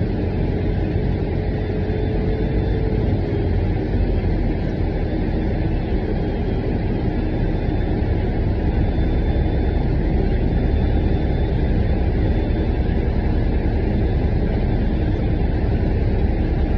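City bus heard from inside the passenger cabin: steady engine and road noise as the bus drives, with a faint whine in the first few seconds that fades away.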